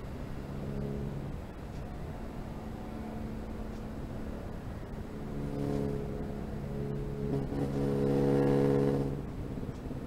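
Pitts S-2A aerobatic biplane's propeller engine droning at a steady pitch during a vertical climb, swelling louder about eight seconds in and dropping off shortly before the end as the plane tops out into a hammerhead turn.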